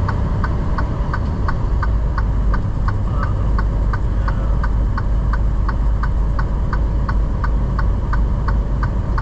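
A truck's indicator flasher ticking evenly, about three clicks a second, over the low, steady drone of the engine and road noise inside the cab.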